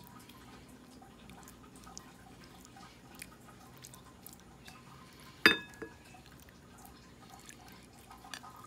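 Raw chicken wing lollipops set into a ceramic bowl of soy-garlic marinade and mixed by hand: faint wet handling sounds and small clicks, with one sharp clink against the ceramic bowl about five and a half seconds in that rings briefly.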